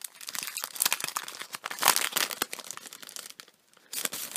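Paper crinkling and rustling as packing tissue paper and a card's envelope are handled. The crackles are quick and irregular, loudest about two seconds in, with a short burst just before the end.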